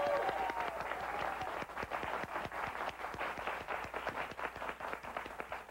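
Studio audience and seated guests applauding, the clapping thinning and dying away near the end.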